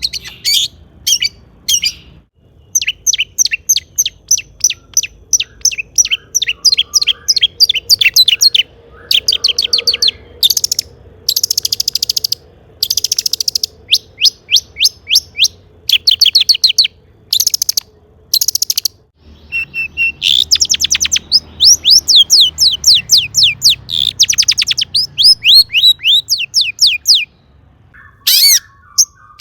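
Long-tailed shrike singing loudly: fast runs of sharp, high chattering notes in bursts of a second or two, broken by short pauses.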